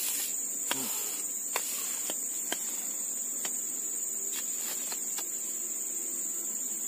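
Steady, high-pitched drone of an insect chorus in swamp forest, with a few light clicks scattered through it.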